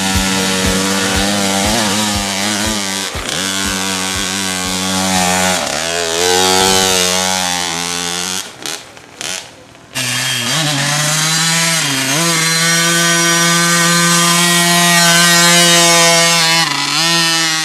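Small youth dirt bike engine running at high revs, its pitch dipping and climbing as the throttle is worked. The sound breaks off briefly about eight seconds in, then the engine runs on at a steady high pitch with a couple of short dips.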